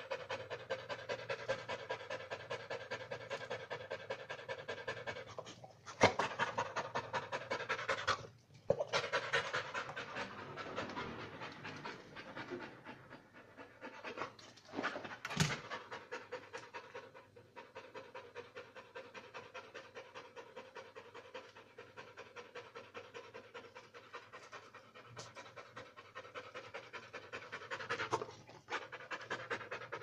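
Rottweiler panting rapidly and rhythmically, close up. A few sharp knocks break in along the way.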